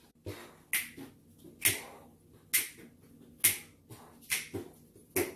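A run of short, sharp snaps, about one a second, fairly regular, over a quiet room.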